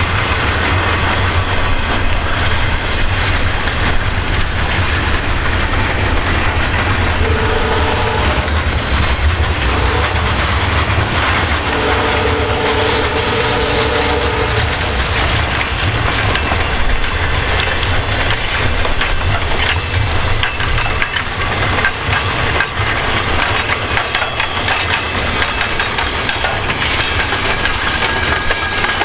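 Double-stack intermodal freight train of container well cars rolling past: a steady low rumble with the clatter of steel wheels over rail joints. Twice near the middle a pitched tone rises above the rumble, once briefly and once for a couple of seconds.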